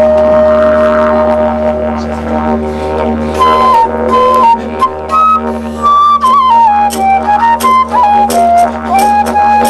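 Live music: a held low drone from a wind instrument, joined about three and a half seconds in by a flute-like melody stepping up and down between notes over it.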